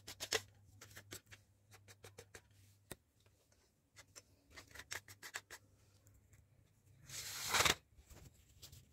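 Clicks and light rattles of an aluminium light stand being handled as its twist-lock leg collars are turned and tightened, with a louder rushing scrape lasting under a second about seven seconds in. A faint low hum runs underneath.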